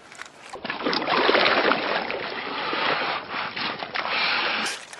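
Shallow river water splashing and sloshing as a released Chinook salmon kicks free of the hands holding it and swims off. The splashing starts about half a second in and dies away near the end.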